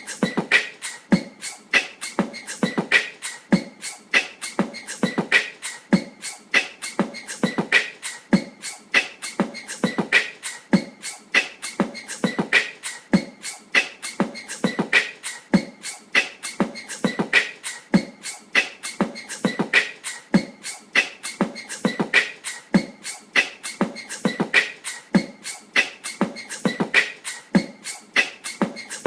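Wobbling ceiling fan knocking and clicking in a steady repeating rhythm, several clicks a second with a louder knock about every two seconds: the sign of an unbalanced or loose fan rattling in its mount as it turns.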